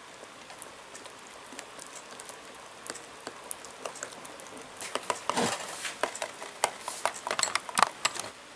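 Tiny metal whisk stirring crepe batter in a small glass bowl: light clicks and scrapes of metal on glass, becoming quicker and louder about five seconds in.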